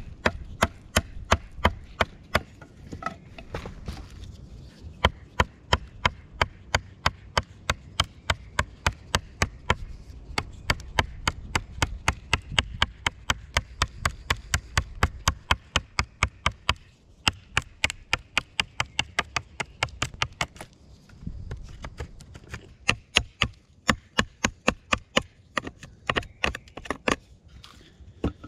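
Large fixed-blade knife chopping into a wooden stick, shaping its end with quick repeated strokes, about three sharp knocks a second, with a couple of short pauses.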